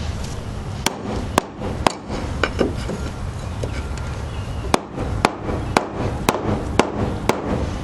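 Hammer blows on a wooden floor joist, a sharp crack each time: three strikes about half a second apart near the start, then six more at the same steady pace in the second half, over a steady low rumble.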